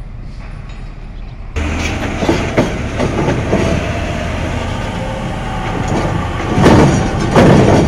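A heavy truck rolling off a ferry over the steel loading ramp: its engine running low and the ramp plates clattering and clanking under its wheels, loudest in two heavy clanks near the end. The first second and a half is quieter before the clatter comes in suddenly.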